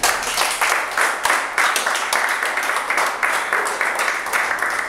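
Applause: hands clapping in a quick, even rhythm.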